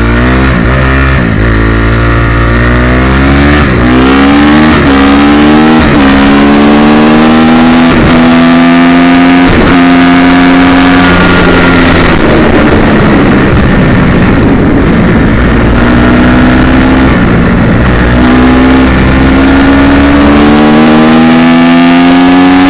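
2016 Honda CRF250R's single-cylinder four-stroke engine revving hard under acceleration while being ridden. Its pitch climbs and drops sharply again and again in the first several seconds as it shifts up through the gears, then holds high, climbing slowly with a few dips.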